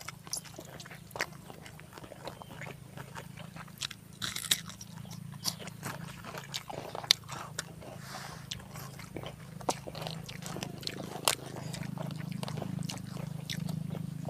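Close eating sounds: scattered small crunches and clicks as crispy dry-fried eel is picked apart by hand and chewed.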